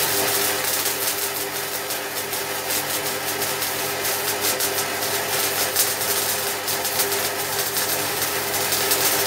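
MIG welding arc laying a bead on 3 mm steel angle iron: a continuous, even crackle with a steady hum beneath it. The crackle is the sound wanted when wire speed and voltage are set right with enough shielding gas.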